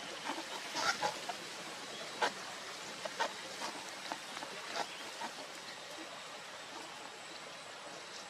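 Short, sharp bird chirps, about a dozen in the first five seconds, then stopping, over a steady background hiss.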